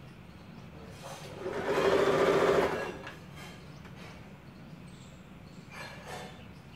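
Electric sewing machine stitching a seam through two pinned layers of fabric, sewn slowly in short runs: one louder burst of steady whirring about a second and a half in, lasting just over a second, with a quieter hum before and after and a brief short run near the end.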